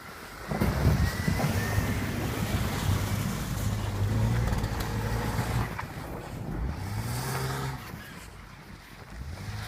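Jeep Wrangler engine running steadily, then revving up with a rising pitch about two-thirds of the way in before dropping away quieter near the end.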